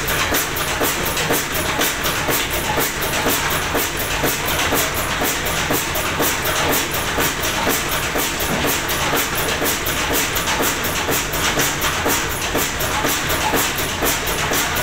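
Ruston Hornsby single-cylinder stationary diesel engine running steadily, with an even, regular beat and clatter from its valve gear and flywheel.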